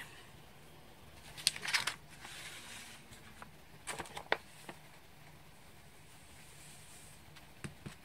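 A sheet of paper being picked up, folded and handled: a faint rustle with a few light clicks, about one and a half and four seconds in, and small taps near the end.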